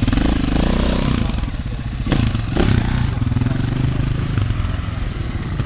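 Enduro motorcycle engines running, their pitch shifting a little, with two sharp clicks about two seconds in.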